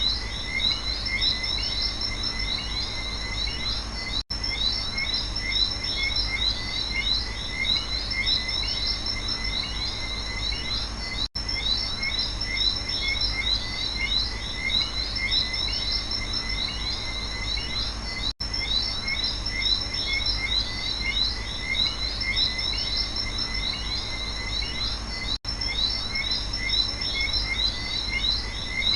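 Rainforest night chorus of frogs and insects: dense, continuous chirping and trilling over a low steady rumble. Four times, about every seven seconds, the sound drops out for an instant.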